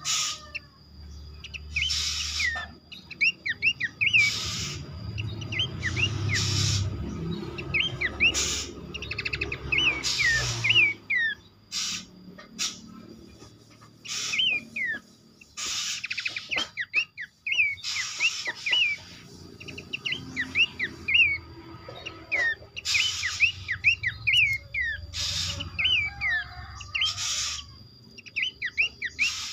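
Pelanduk semak babblers calling: clusters of short, quick down-slurred chirps, with louder noisy bursts every few seconds. A faint steady high tone runs underneath.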